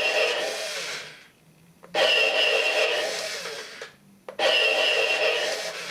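Star Wars AT-AT U Command toy playing its electronic blaster-firing sound effect through its small speaker, three bursts in a row, each starting with a short click and fading out over about a second and a half.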